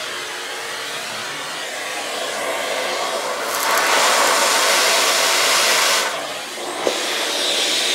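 Vacuum cleaner running, its metal suction tube sucking drilling dust out of a freshly drilled hole in the wall. The rush grows louder and hissier from about three and a half to six seconds in, while the nozzle is at the hole, then eases. There is a small click near the end.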